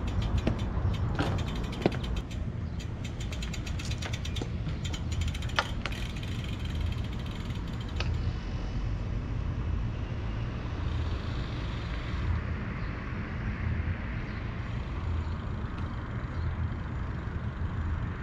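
Road bike riding, with steady wind rumble on a bike-mounted camera's microphone. Over the first several seconds the rear hub's freewheel ticks rapidly while the bike coasts, then the clicking gives way to steady wind and road noise.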